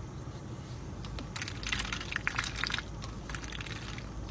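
A pet duck dabbling its bill in a plastic cup of water: bursts of rapid clicking, one from about a second in to nearly three seconds, and a shorter one a little later.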